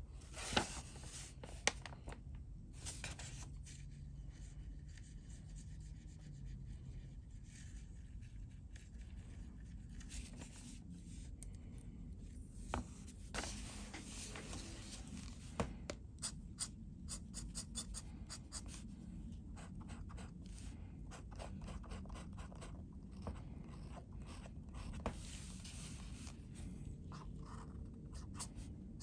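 Fountain pen nib of a Lincoln pen by A.A. Waterman scratching across paper in runs of quick short strokes. Two sharp clicks come in the first two seconds.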